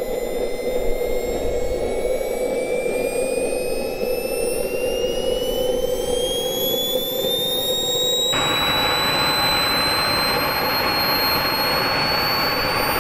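Model jet turbine engine, taken from an RC plane, starting up for the first time after ignition: a whine rises steadily in pitch as the turbine spools up. About eight seconds in, a louder rushing noise suddenly joins it and then holds steady.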